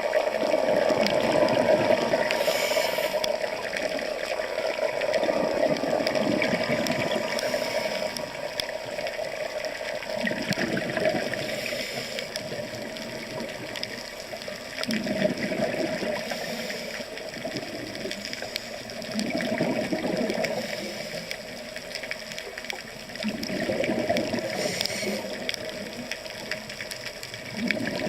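Rushing, churning water that swells every four to five seconds in the second half.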